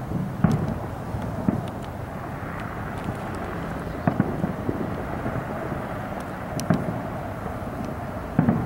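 Aerial firework shells bursting at a distance: about half a dozen dull booms at uneven intervals, over a steady low background noise.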